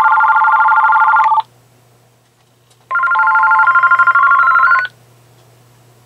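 AT&T EL52419 DECT 6.0 cordless phone ringing with an electronic multi-tone ringer: one ring ends about a second and a half in, and a second ring of about two seconds starts about three seconds in, each a chord of steady electronic tones that step in pitch.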